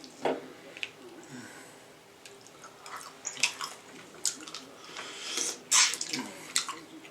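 Wet eating sounds of king crab legs in sauce: shell clicking and squishing with chewing, in irregular bursts, the loudest about five and a half seconds in.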